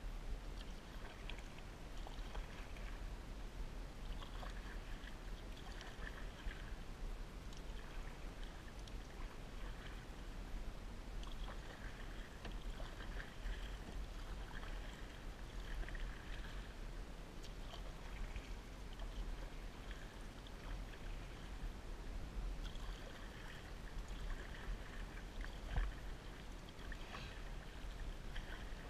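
Canoe being paddled: the paddle swishes through the water and water trickles off the blade in stroke after stroke every few seconds, over a steady low rumble.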